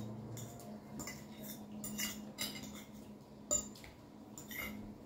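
Forks and a table knife clinking and scraping against glass plates while food is cut and picked up, with a sharp clink about three and a half seconds in.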